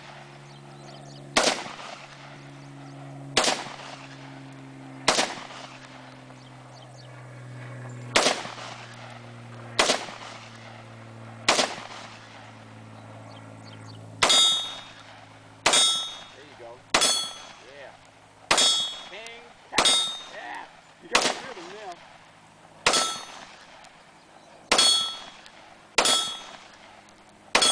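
AR-15 rifle fired one shot at a time, about every one and a half to two seconds. The first half-dozen shots are plain bangs; from about halfway through, each shot is followed by a short ringing metallic ping as the bullet hits an old scuba tank used as a target.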